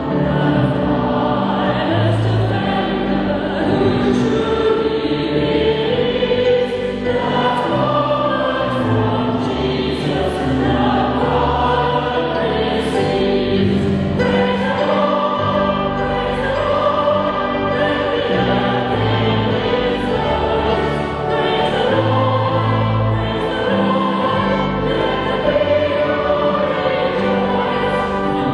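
A choir singing in sustained, slowly changing chords.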